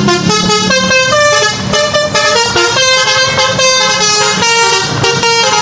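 A loud tune in a horn-like tone: held notes that step up and down in pitch a few times a second.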